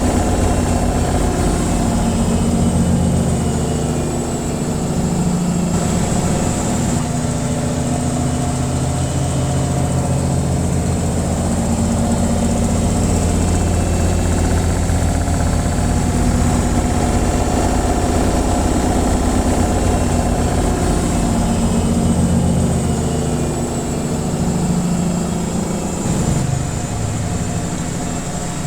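Washing machine on its spin cycle: a steady mechanical drone with a fast low rumble from the spinning drum and a thin high whine above it.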